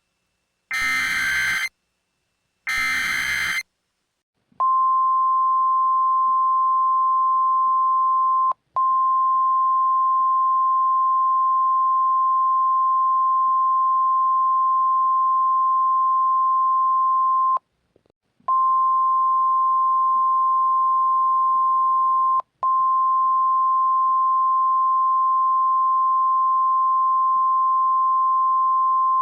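Two short bursts of the EAS SAME header's digital data tones, then after about a second's pause the NOAA Weather Radio 1050 Hz warning alarm tone: one steady high tone, signalling that a new weather warning follows. The tone breaks off briefly three times, the middle break lasting about a second.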